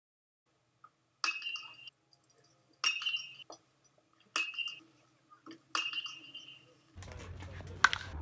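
Metal baseball bat hitting pitched balls four times, each contact a sharp ping with a brief ring, about a second and a half apart. Near the end a louder crack of bat on ball sounds over steady outdoor background noise.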